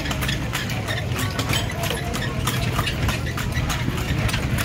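Horse's hooves clip-clopping on the street, a run of irregular clicks, over the steady low hum of an idling engine.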